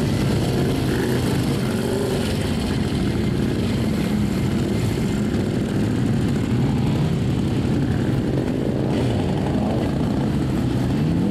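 A procession of motorcycles, trikes and a motorcycle sidecar outfit riding past one after another. Their engines make a steady, overlapping drone, and the pitch shifts up and down as each machine goes by.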